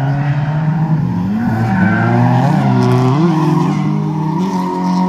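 Drift car engines revving, their pitch rising and falling as the cars slide through a corner, over tyre squeal.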